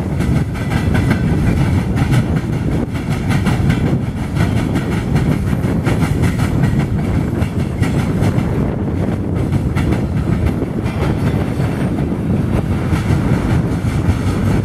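BNSF mixed freight train cars (hoppers, gondolas and tank cars) passing at high speed: a loud, steady rumble of steel wheels on rail with rapid clicking over the rail joints.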